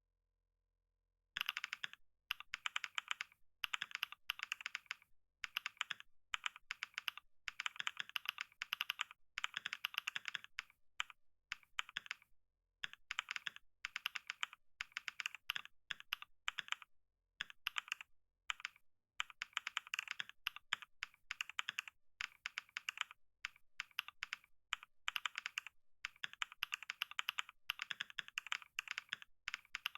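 Computer keyboard typed on fast for a typing test: rapid runs of key clicks broken by brief pauses, starting about a second and a half in.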